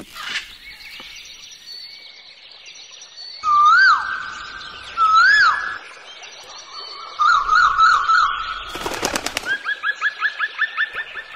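Nature sound effects: a brief whoosh at the start, then whistled bird calls that swoop up and down in pitch, twice, followed by a warbled trill. About nine seconds in comes a short, rapid burst of knocks, then a fast run of chirps at about seven a second.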